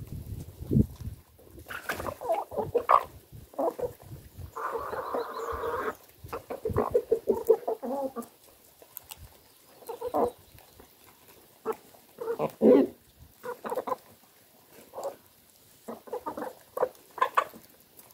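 Chickens clucking in a flock while hens and a rooster peck at scattered eggshells on bare ground. Short, irregular calls come one after another.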